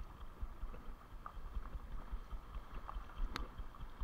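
Shallow seawater sloshing and lapping over rocks, with irregular low buffeting on the microphone and one sharp click about three seconds in.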